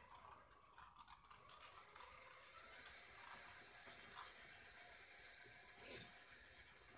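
Faint whirr of the toy motor and LEGO gearing turning a LEGO swing carousel. It dips briefly near the start, then runs steadily, with one short knock about six seconds in.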